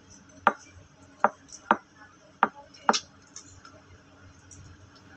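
Close-up eating sounds: a person chewing rice and pork, with about five sharp smacking clicks from the lips and mouth at uneven intervals.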